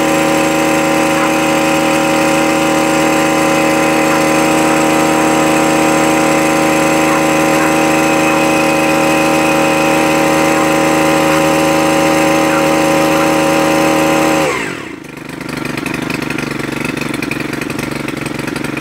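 Gas-powered earth auger's small engine running steadily at high speed, then dropping in pitch about fourteen seconds in as the throttle is released, settling to a lower, uneven idle.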